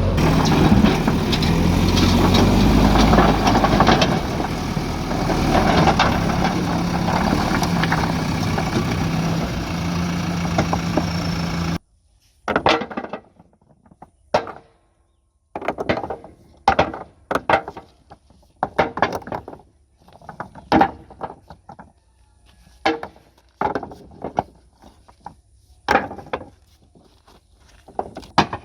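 Diesel engine of a backhoe loader running steadily under work, cutting off abruptly about 12 seconds in. After that comes a series of separate knocks and thuds, roughly one a second, with quiet between them.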